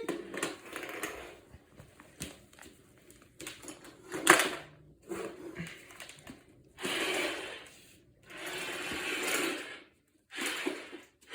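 Small electric gearbox motors of a remote-control toy robot whirring in three bursts of about a second each in the second half, with scattered handling clicks and a louder knock about four seconds in.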